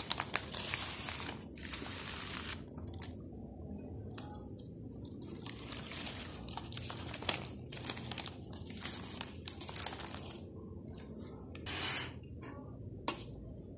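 Crisp sheets of roasted sushi nori and their plastic packet being handled: irregular rustling and crinkling that comes and goes, with a couple of sharp clicks near the end.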